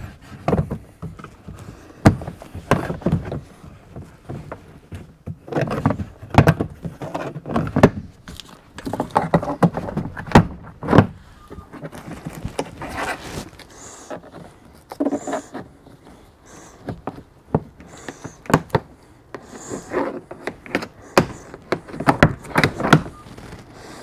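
Plastic interior trim panel in the rear cargo area of a 2023 Honda Passport being pulled and worked loose by hand: irregular knocks, clicks and rattles as the panel flexes against its mounting clips.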